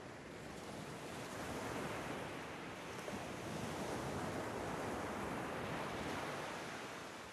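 Soft rushing surf on a meditation background track: a wave swells up over a few seconds and eases back off near the end.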